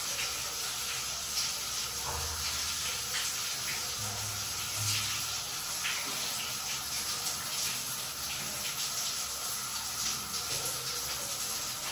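A steady, even hiss with a few faint soft ticks.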